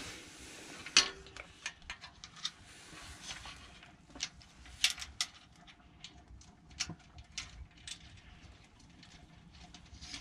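Irregular small clicks and taps of hands handling metal parts at a bicycle's rear dropout, trying a pannier rack's stays against the frame. The sharpest click comes about a second in, with a cluster of them around five seconds in.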